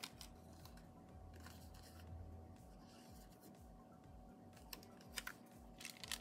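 Near silence with faint handling of a paper sticker: a hexagon sticker is set down and pressed onto a planner page, giving a few soft taps and clicks in the second half.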